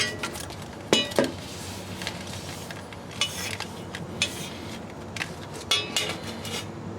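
Irregular metallic clinks and clanks, some ringing briefly, of hand tools and bolts against the stamped-steel transmission oil pan of a 46RE automatic as the pan is worked loose.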